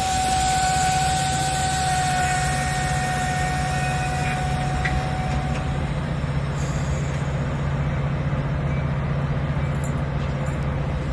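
Metra commuter train standing at a station platform, its diesel power giving a steady low drone, with a steady high whine that stops about six seconds in.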